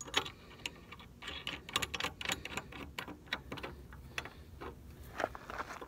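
Light, irregular metallic clicks and ticks as the bolt of a mechanical tee is fitted and threaded by hand onto the clamp around steel sprinkler pipe.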